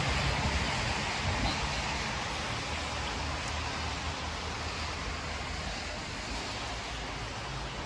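Heavy rain falling steadily, an even hiss, over a faint low rumble of traffic on the wet road that slowly fades.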